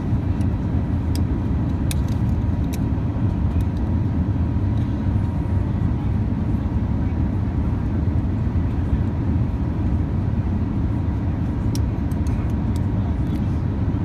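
Steady low drone of an airliner cabin in flight, with a few light clicks from a metal seatbelt buckle being handled: a couple in the first few seconds and a cluster near the end.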